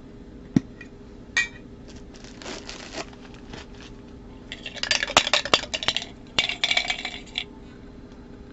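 A Funko Soda collectible can being opened and handled by hand: a sharp click under a second in and another short sound at about a second and a half, then a busy run of metallic clinking and rustling between about four and a half and seven and a half seconds.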